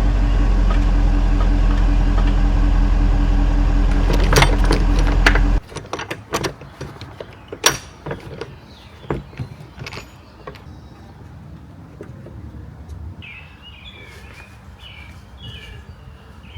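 Car engine idling steadily, then switched off abruptly about five and a half seconds in. Scattered light clicks and knocks follow.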